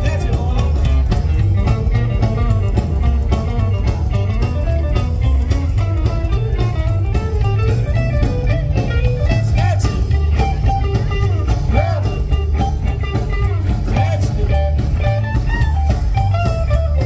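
Live rockabilly combo of electric guitar, acoustic guitar, upright bass and drums playing a song, with guitar to the fore over a steady, prominent bass line.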